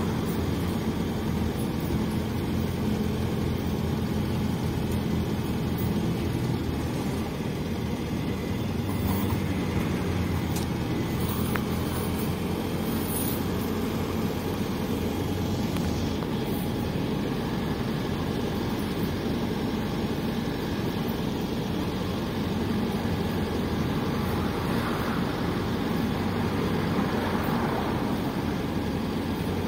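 PAZ 320414-05 bus under way, heard from inside the passenger cabin: a steady engine drone with road and rattle noise. A low engine tone is clearest through the first dozen seconds.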